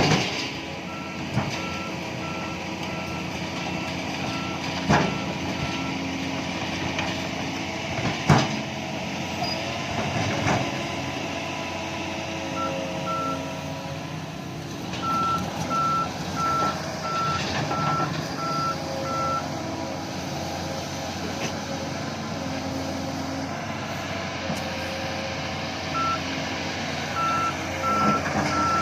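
Reversing alarm on heavy equipment beeping in several runs of about two beeps a second, over a diesel engine running steadily, with a few sharp knocks along the way.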